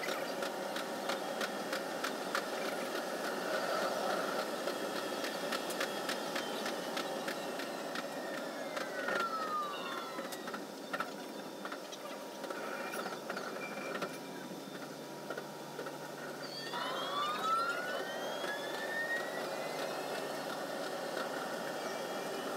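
JR 373 series electric train running, its sound sped up fivefold: a fast clatter of wheels over rail joints and points under steady running noise. About nine seconds in the motor whine glides down as the train slows, and about seventeen seconds in it glides up again as the train speeds up.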